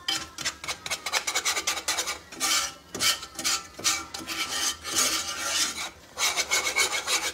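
Metal wire whisk scraping and rubbing around a cast-iron skillet in quick repeated strokes, working a thick roux of oil and flour.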